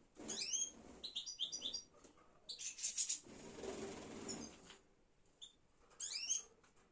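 Small birds chirping in bursts of short, high, quickly rising calls, several times over, with a brief hissing rustle about three seconds in.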